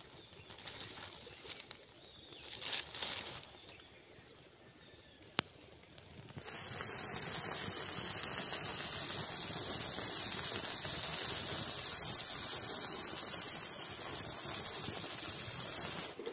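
Faint crackling of a small wood fire, with a sharp pop about five seconds in. About six seconds in, a steady, high-pitched chorus of insects cuts in abruptly and runs on unchanged.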